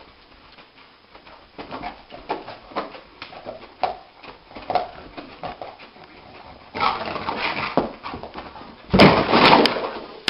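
Dog whimpering and giving short yips in its sleep while its legs paddle and its paws scuff the carpet, in many short ticks. Near the end there is a loud scuffling noise as it scrambles up onto its feet.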